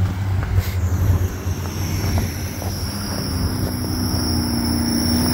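Motor vehicle traffic: a steady low engine hum, with a high whine that slowly falls in pitch from about a second in and a lower tone gliding in about halfway through.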